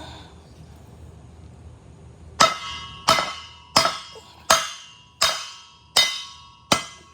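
Hammer striking the driveshaft's U-joint yoke seven times, about one blow every 0.7 s, each with a metallic ring. The blows are driving out a seized U-joint whose needle bearings are basically welded in.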